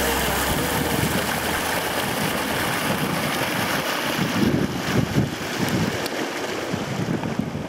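Wind blowing steadily with a rushing sound, buffeting the microphone in low gusts from about halfway through.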